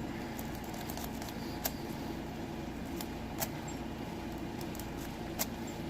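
Lock-pick rake working in a Best lock cylinder: a few faint, scattered metallic clicks and scrapes as the rake runs in and out over the pins, over a steady low hum.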